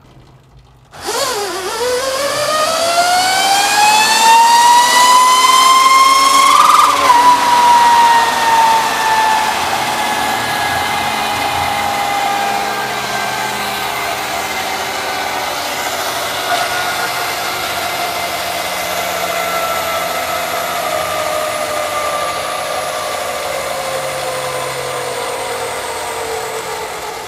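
Electric-converted Suzuki GSX-R150 motorcycle on a chassis dyno making a full-power run: a drivetrain whine that starts about a second in and climbs in pitch for about six seconds as the rear wheel spins up, then falls slowly as it coasts down, over a steady rushing noise.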